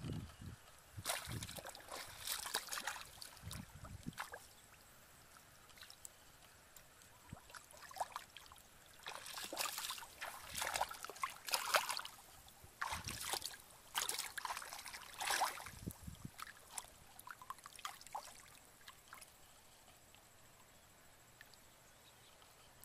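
Hands splashing and sloshing in shallow muddy water while groping for fish, in irregular bursts with quieter stretches between and near the end.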